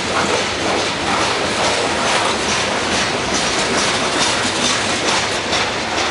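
Freight train of coal hopper cars rolling past: a steady rumble of steel wheels on rail with a repeated clickety-clack as the wheels cross rail joints.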